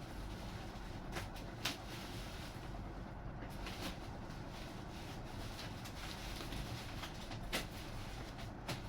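Parts and packaging of a model-plane kit being handled: a few sharp clicks and knocks, spaced irregularly, over a steady low background rumble.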